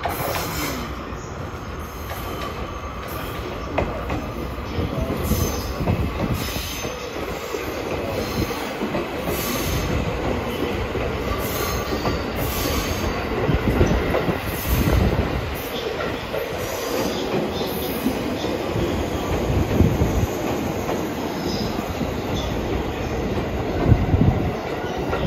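JNR 211 series 3000 electric multiple unit, six cars, rolling slowly into a station platform. Its wheels squeal on the curving track and knock over rail joints now and then, under a steady rumble of running gear.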